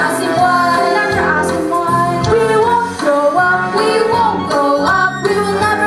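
Female voices singing a musical number into handheld microphones over instrumental accompaniment with a steady beat.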